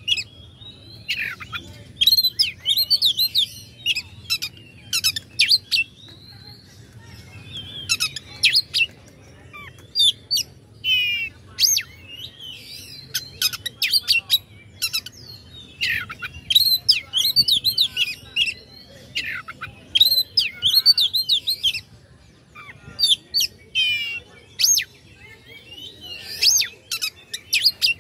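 Oriental magpie-robin singing a loud, varied song of whistled, gliding phrases mixed with sharp, rapid notes, in bursts of a second or two with short pauses between. It is the aggressive, challenging song used to provoke a rival.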